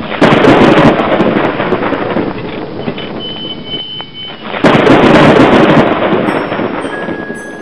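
Two thunderclaps, one right at the start and another about four and a half seconds in, each rumbling and fading over a couple of seconds. A faint high tone sounds briefly between them.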